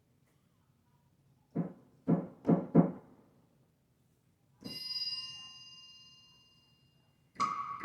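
Percussion sounds from a keyboard synthesizer: four low drum hits in quick succession, then a single ringing, bell-like strike that fades over about two seconds. Near the end another run of hits starts over a steady tone.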